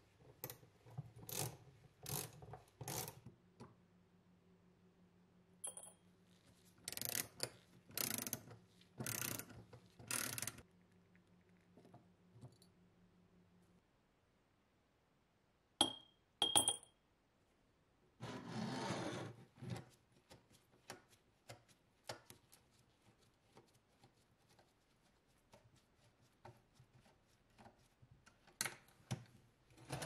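Hand tools working on the small rusty metal parts of a model gun lighter: a run of short strokes, then four longer rubbing strokes, then two sharp clinks of small metal parts dropped into a glass jar, followed by a drawn-out rub and light scattered ticks.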